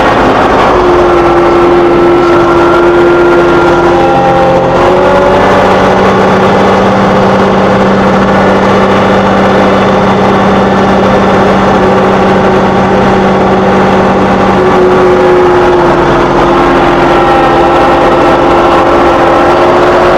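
John Deere 2038R compact tractor's diesel engine running steadily while plowing snow, with a steady whine over it whose pitch shifts a little a couple of times.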